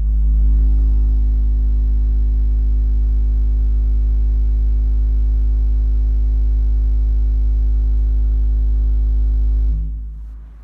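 Deep, steady electronic hum with a buzz of overtones, vibrating a shallow tray of liquid so that its surface breaks into a standing-wave ripple pattern. It starts abruptly, holds at a constant level and dies away about ten seconds in.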